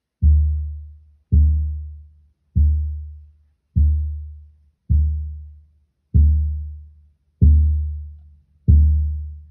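A deep, bass-heavy drum struck slowly and evenly, eight beats about a second and a quarter apart. Each beat booms and dies away before the next.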